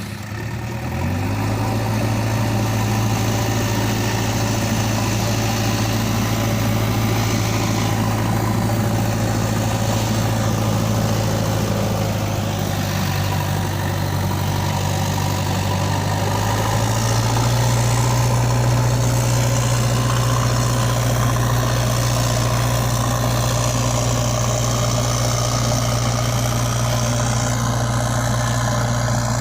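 Diesel engine of heavy machinery running steadily, picking up speed a little about a second in and again a little past the middle.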